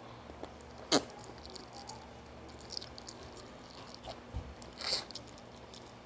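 Close-up eating sounds: wet chewing and mouth clicks while eating with the fingers, with one sharp click about a second in and a short hissy smack near the five-second mark.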